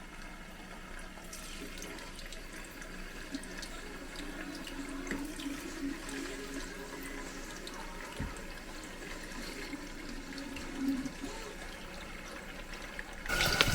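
Water running steadily from a kitchen tap into a sink, a fairly quiet, even hiss.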